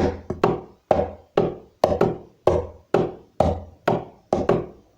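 Hands drumming a steady rhythm on a wooden tabletop, about two strokes a second with some quick double strokes. Deeper fist strokes on the middle of the table alternate with higher open-hand slaps at the edge, imitating a samba groove.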